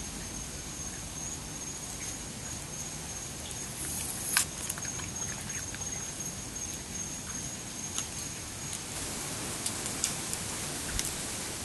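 A raccoon eating apple pieces on a concrete patio: scattered short crunches and clicks over a steady hiss, the sharpest about four seconds in. A thin, high, steady tone runs alongside and stops about nine seconds in.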